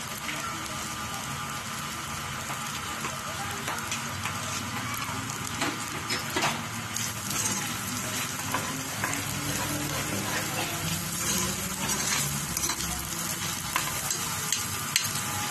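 Ground meat sizzling as it fries in a stainless steel skillet, stirred and scraped with a utensil, with scattered clicks of the utensil against the pan.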